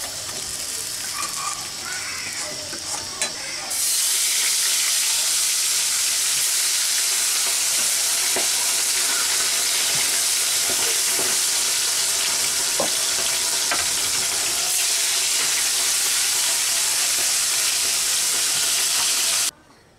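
Fish frying in hot oil in a steel kadai. It starts as a lighter sizzle with a few clicks of the spatula. About four seconds in, a fresh batch of fish goes into the oil and a loud, steady sizzle sets in, which cuts off abruptly near the end.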